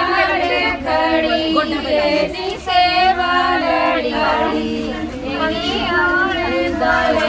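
A group of women singing a wedding song together, several voices at once, loud and held.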